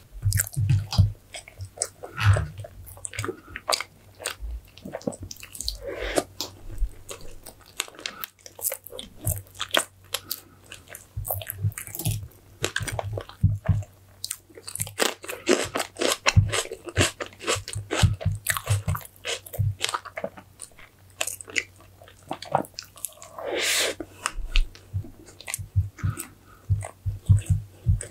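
Chewing and biting of green grapes and strawberry fresh-cream cake: many short crunches and wet mouth clicks, one after another.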